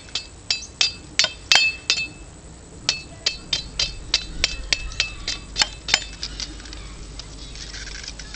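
A machete working hardwood: quick repeated blows, several a second, each with a short metallic ring from the steel blade. The blows come in two runs with a pause about two seconds in.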